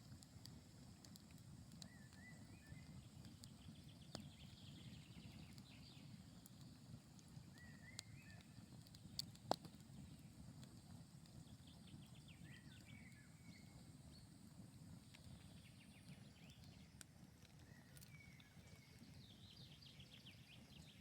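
Faint campfire crackling, with scattered sharp pops and one louder pop about halfway through. A bird calls in short phrases four times.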